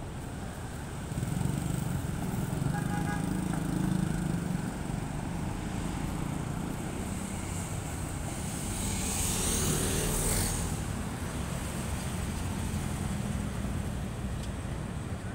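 Light road traffic: cars and motorcycles passing with their engines running, giving a steady low rumble that swells for a few seconds near the start. About two-thirds of the way through comes a louder rushing swell that rises and falls.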